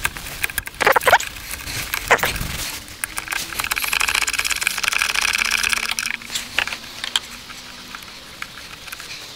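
Plastic engine-bay parts being handled by hand, the turbo pipe and engine cover of a diesel engine being worked loose. There are a few sharp knocks and clicks, then several seconds of rapid rattling and scraping, then two more knocks near the end.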